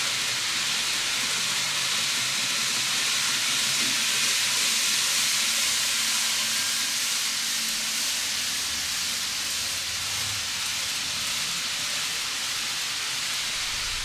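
Kato N-gauge 0 Series Shinkansen model train running around the layout: a steady rolling hiss of its wheels on the track, with a low hum joining about eight seconds in.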